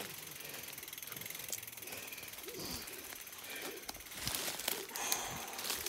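Mountain bike's rear freehub ratchet ticking in short runs of fast clicks as the bike is carried on the shoulder, the runs thickest near the end, among footsteps on the dirt trail.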